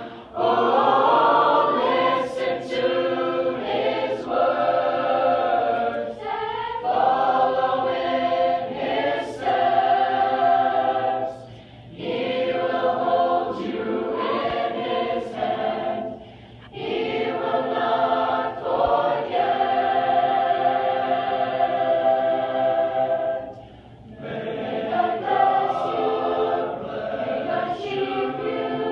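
Youth choir of mixed boys' and girls' voices singing in harmony without accompaniment, in long held phrases with a few short breaks between them.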